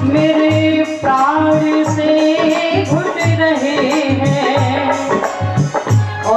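A woman singing a Hindi devotional bhajan into a microphone, holding long notes that slide between pitches, over a steady hand-drum beat with small cymbal or rattle strokes.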